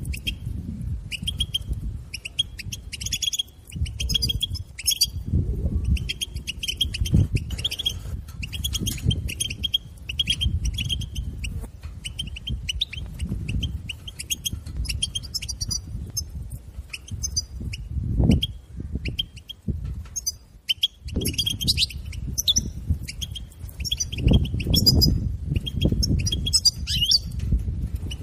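European goldfinch twittering: rapid runs of short, high chirping notes in phrases broken by brief pauses. Underneath is an uneven low rumble that swells a few times.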